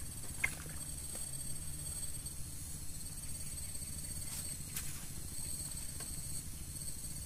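Steady high-pitched chirring of insects, several thin tones held evenly, with a few faint clicks, one about half a second in and two between four and five seconds in.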